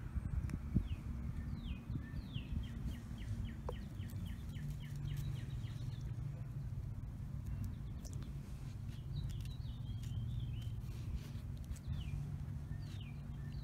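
Songbirds chirping: scattered short downward-sliding notes, with a quick run of repeated notes a few seconds in and more calls near the end, over a steady low rumble.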